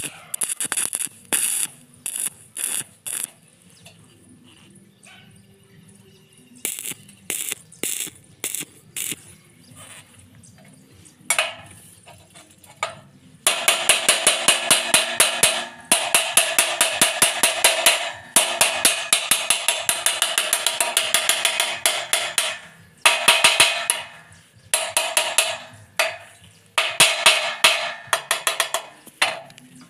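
Stick-welding arc from a 220 V welder burning 2.5 mm electrodes, crackling in on-off bursts: several short tack welds, then a longer weld of about ten seconds with a few brief breaks, then more short bursts.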